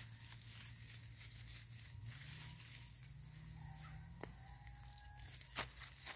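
Steady high-pitched insect drone from the surrounding forest, holding one tone. A few sharp clicks come over it, the loudest about five and a half seconds in.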